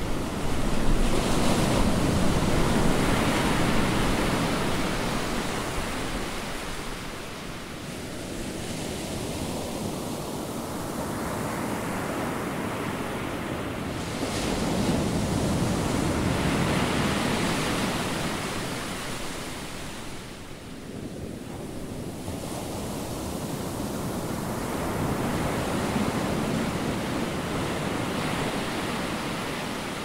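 Ocean surf: waves breaking and washing in, swelling three times, near the start, about halfway, and again towards the end, and easing off in between.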